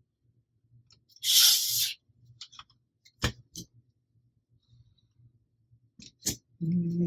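3D-printed plastic blaster parts being handled and fitted: a brief scraping slide about a second in, followed by several sharp plastic clicks as the pieces go together.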